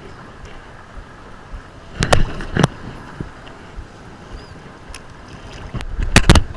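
Wind on the microphone and water sloshing around a camera held low at the surface. Sharp knocks come twice about two seconds in, and a louder cluster of them comes near the end.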